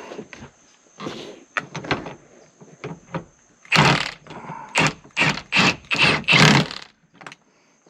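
A few clicks and knocks of parts being handled, then a cordless impact wrench fired in about six short, loud bursts, tightening a seatbelt mounting bolt.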